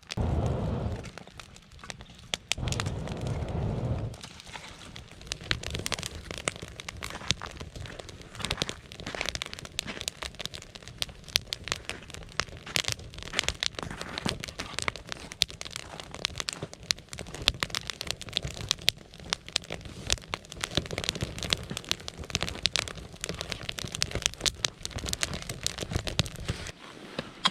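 Burning wood crackling and popping in a dense, irregular run of small snaps, with two louder low rumbling stretches in the first four seconds.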